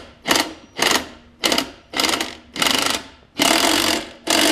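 Cordless 19.2-volt 3/8-inch impact wrench hammering as it runs the engine mounting bolts onto a push-mower deck. It comes in five short trigger pulls about half a second apart, then two longer runs near the end.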